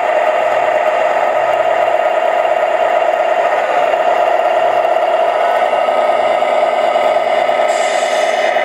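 Radio-controlled scale model truck pulling a tanker trailer, driving with a steady, even drone from its motor.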